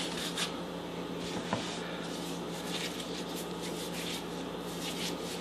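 Faint soft rubbing and light taps of hands picking up and working wet pizza dough on a floured wooden board, over a steady low hum.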